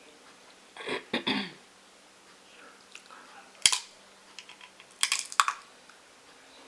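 Crab leg shells being cracked and snapped open by hand: a handful of sharp cracks, one about three and a half seconds in and a quick cluster around five seconds.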